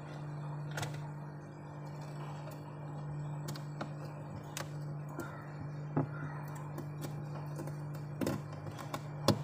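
Fingers touching and scraping the frost on a freezer's ridged plates, giving scattered crisp clicks and crunches. The loudest come about six seconds in and twice near the end. A steady low hum runs underneath.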